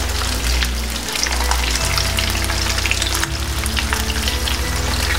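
Marinated chicken pieces frying in a little oil in a non-stick pan: a steady sizzle with scattered crackles and pops, over a low steady hum.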